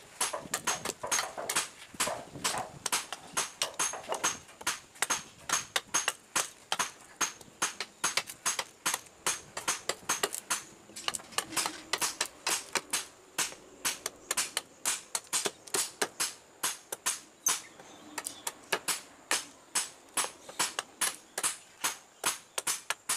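A long blade chopping and shaving a block of sonokeling rosewood held against a log, in quick repeated sharp strikes, about three to four a second.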